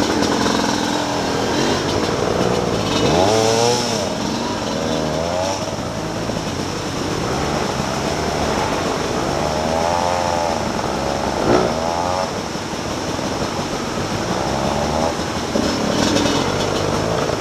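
Off-road motorcycle engines revving and easing off in short spells, the pitch swinging up and down as the dirt bikes pick their way up a muddy trail. A single sharp knock comes about two-thirds of the way in.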